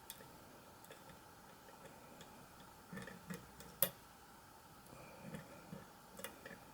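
Faint, irregular clicking of a lock pick and tension wrench working the spring-loaded pins inside a pin-tumbler lock. The sharpest click comes about four seconds in, another near the end.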